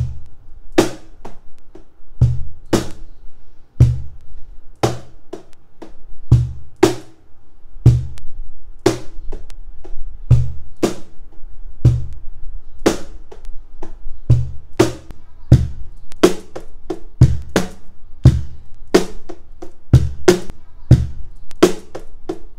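Wooden CMC RhythmBox cajon played by hand in a repeating groove of bass tones, slaps and high slaps: deep thumps from the centre of the front plate alternate with sharp, crisp slaps near the top edge.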